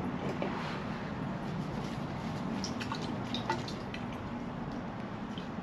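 Small clicks, ticks and drips of a fork part being handled and cleaned with brake cleaner, over a steady low background noise.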